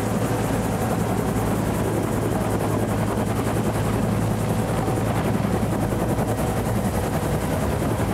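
Turbine helicopter running close by, its two-bladed main rotor beating in a steady rapid chop as it lifts off into a low hover.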